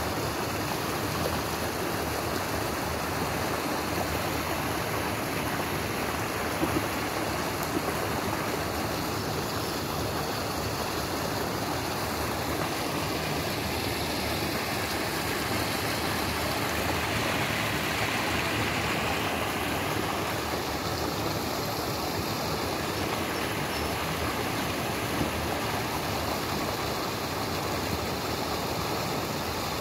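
Small creek rushing steadily, white water pouring and churning over rocks into a pool.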